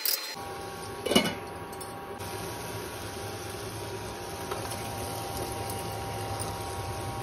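Potatoes and tomatoes sizzling steadily in a pan on an induction cooktop, over the cooktop's steady hum and faint whine. A single sharp knock about a second in.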